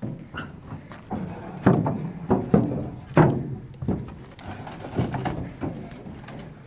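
A series of irregular heavy knocks and thuds on a wooden boat as a motorcycle is shifted on its plank deck.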